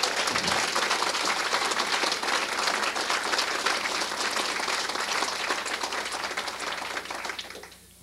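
Audience applauding: many hands clapping in a dense patter that dies away near the end.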